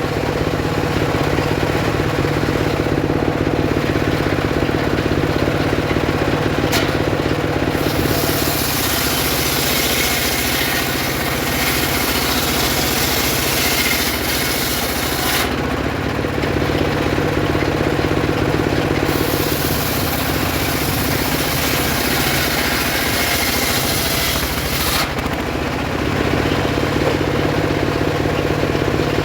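Homemade circular saw ripping sengon wood, running steadily throughout. Twice, for about seven and six seconds, a louder hiss comes in as the blade cuts through the wood.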